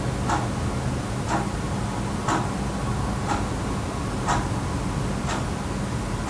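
Wall clock ticking steadily, one tick a second, over a steady low hum of room ambience.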